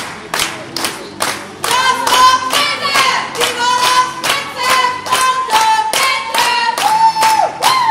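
Crowd clapping along in a steady beat, about two and a half claps a second, with music and singing coming in about one and a half seconds in.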